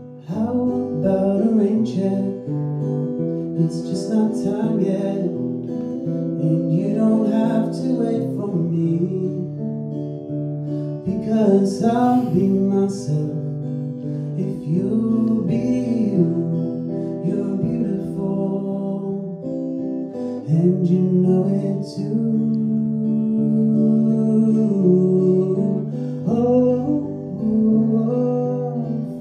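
A man singing to his own strummed acoustic guitar in a solo performance of a folk-style song.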